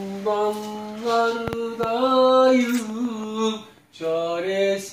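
A man singing unaccompanied in Turkish. He holds a long, wavering note on "bu", breaks off briefly, then sings "zindanlardayım" ("I am in the dungeons") near the end. Two light clicks come about a second and a half in.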